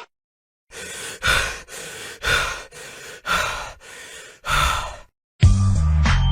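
A person breathing heavily and loudly through the mouth: four breaths in a row, each a softer intake followed by a loud, hard exhale. A music track with a heavy bass line cuts in near the end.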